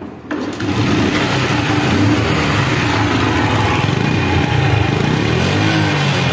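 A Honda Super Cub's small single-cylinder four-stroke engine starts up suddenly just after the start and runs steadily, heard close at the chrome exhaust silencer, with slight rises in pitch near the end. The seller holds up this engine sound as flawless, the sign of a bike in good condition.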